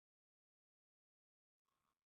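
Digital silence: no sound.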